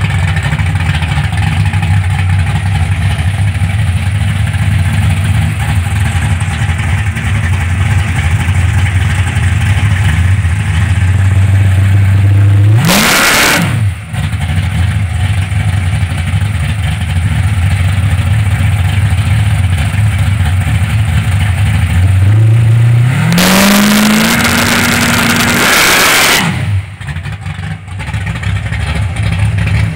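Classic Ford Mustang fastback's engine idling loudly and steadily. About 13 seconds in there is a quick blip of the throttle. Around 23 seconds a longer rev climbs, holds for about three seconds, then drops back to idle.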